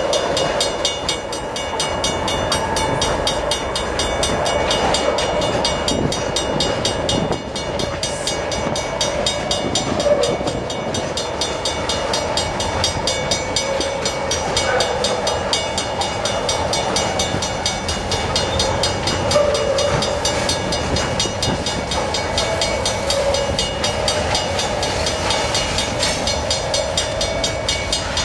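A string of railroad tank cars rolling slowly along the track: a steady rumble with a wavering high tone running through it.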